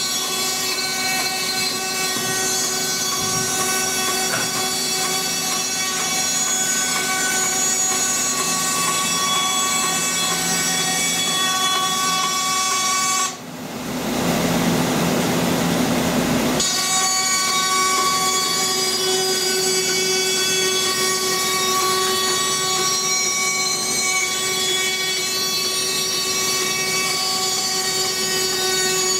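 Scheppach Basato 5-4 band saw running while a thin strip of wood is fed through the blade by hand: a steady machine hum with high whining tones. About 13 seconds in, the sound dips briefly and turns rougher and hissier for about three seconds, then the steady tones return.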